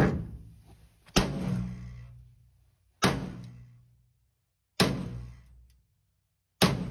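Sledgehammer striking the rusted steel entry step of an old bus four times, about every two seconds, each blow ringing out for about a second: beating the bent step back into shape.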